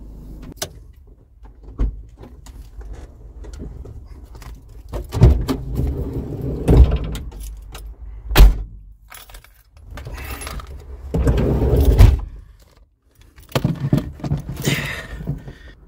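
Someone shifting about inside a small car, climbing from the front into the back: rustling and handling noise with scattered knocks and a jangle of keys. The sharpest knock comes about eight and a half seconds in.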